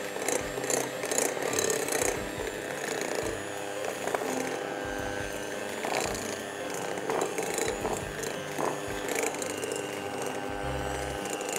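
Anex electric hand mixer running steadily on low speed, its twin beaters working flour into a stiff cookie dough in a glass bowl, with a few scattered clicks.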